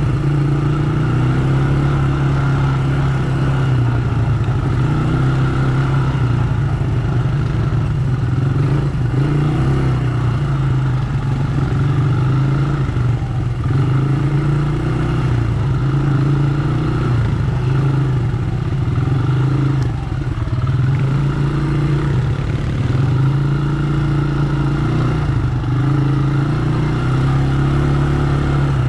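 ATV engine running along a dirt trail, its note rising and falling every second or two with the throttle.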